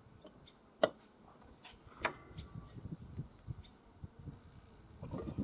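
Hand tools working the blade bolt on a zero-turn mower deck: one sharp metallic click about a second in, then scattered lighter knocks and clinks, busier near the end.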